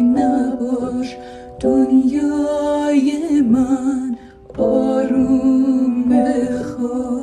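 Two women singing a slow Persian lullaby together in long held notes with a slight waver, over upright piano accompaniment. The singing breaks off briefly about a second in and again about four seconds in.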